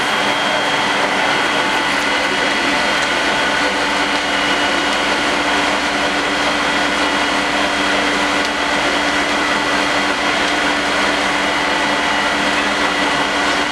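A loud, steady mechanical drone: a rushing noise with a constant high whine and a lower hum that holds level without a break.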